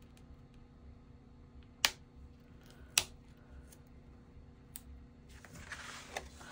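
Hands working clear tape over a small magnet on kraft cardstock: two sharp clicks about two and three seconds in, then the rustle of the cardstock page being lifted and turned near the end.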